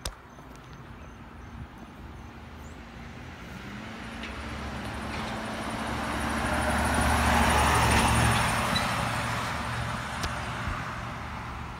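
Box-style ambulance driving past, its engine and tyre noise swelling as it approaches, loudest about eight seconds in, then fading as it moves away.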